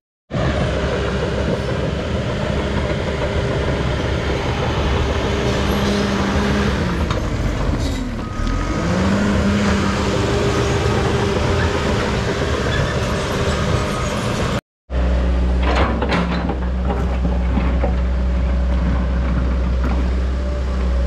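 CAT D3 Next Gen dozer's engine running as it pushes dirt, its pitch dipping briefly about eight seconds in and coming back up. After a sudden cut, a John Deere 120 excavator's engine runs steadily as it digs, with a few knocks soon after the cut.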